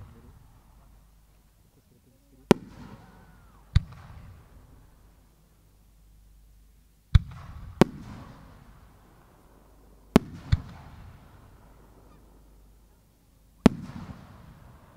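Aerial firework shells going off: seven sharp bangs, two of them in quick pairs. Each is followed by a rolling echo that fades over a second or two.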